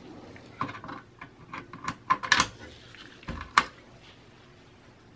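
Small metallic clicks and taps as the CMOS coin-cell battery is worked out of its holder on a Dell Optiplex 9010 motherboard. About a dozen irregular clicks, the loudest about two and a half and three and a half seconds in.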